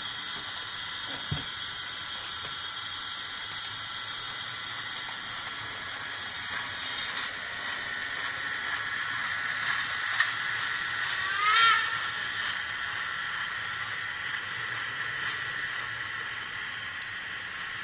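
Digital sound decoder in a Märklin HO model of a DB class 01 steam locomotive playing steam running sound, a steady hiss, through the model's small loudspeaker. About two-thirds of the way through it gives one short whistle that rises in pitch.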